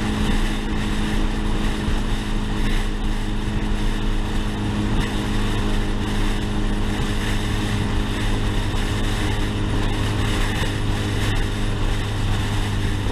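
Turbocharged Honda B-series four-cylinder car engine running at a constant engine speed while the car drives along, a steady drone that neither revs up nor falls away, with wind noise rushing over the microphone.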